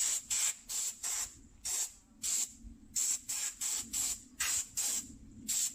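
Compressed air from an air-compressor blow gun, let off in a dozen or so short hissing blasts about two a second. It is blowing dust out of freshly raked-out mortar joints.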